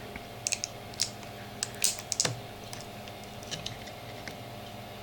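Small metal tool prying at the spot-welded nickel strip on a laptop battery pack's cylindrical cells, making irregular sharp clicks and short scrapes of metal on metal, busiest in the first couple of seconds.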